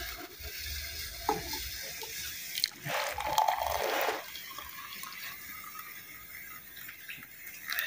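Hot milky tea poured from a metal pot into a ceramic mug: a splashing stream of liquid, loudest about three seconds in and then running on more quietly as the mug fills.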